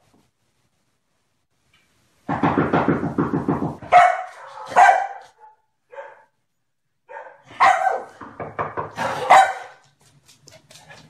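Komondor barking: a drawn-out low vocal sound first, then a run of loud barks with short pauses between them.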